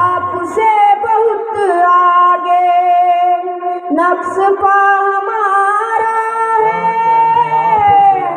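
A boy singing into a microphone, long held notes that glide from one pitch to the next.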